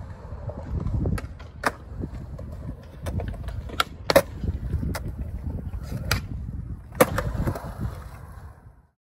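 Skateboard wheels rolling on smooth concrete, a steady low rumble. Several sharp clacks of the board striking the concrete cut through it, the loudest about four seconds in and another about seven seconds in.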